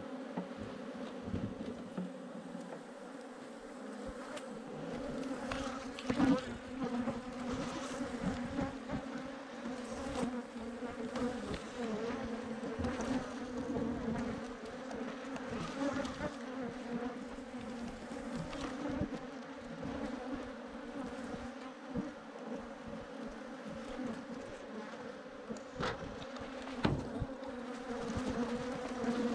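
Swarm of Africanized honeybees buzzing in a steady, droning hum, with a few short knocks now and then.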